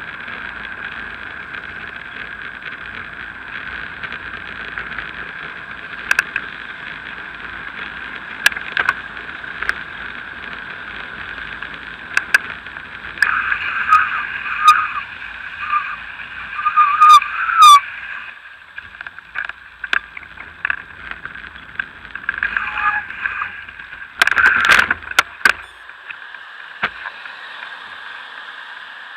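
Ride noise picked up by a bicycle-mounted action camera: a steady hum of wind and tyres, with sharp clicks, knocks and rattles as the bike rides over bumps. The rattling is loudest in a spell around the middle and in a short burst near the end.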